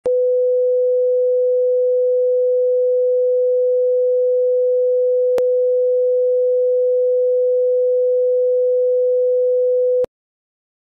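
Steady mid-pitched pure test tone at the head of a recorded broadcast, held for about ten seconds with a single click about halfway, then cut off abruptly.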